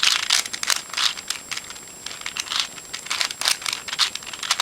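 Eastsheen 4x4 puzzle cube's plastic layers being turned by hand during a solve: a quick, irregular run of light clicks and clacks.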